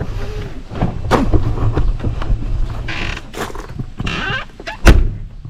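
Clattering and knocking as packed gear in a camper is handled and shut away, over a low steady hum. A sharp, loud thud comes near the end, like a lid or door shutting.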